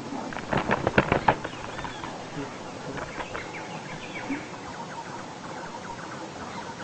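A quick run of sharp knocks or taps about half a second to a second and a half in, with faint short bird chirps scattered throughout.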